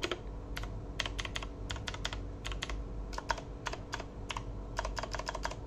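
Akko DS Horizon V2 mechanical keyboard with Akko V2 Blue clicky switches being typed on: a run of sharp clicks at an uneven pace, several a second.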